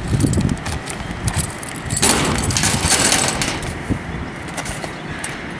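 Plastic bag rustling as it is worked open, with small metal solar-panel mounting brackets and parts clicking and clattering, most densely about two seconds in as they are tipped out onto the corrugated metal roof.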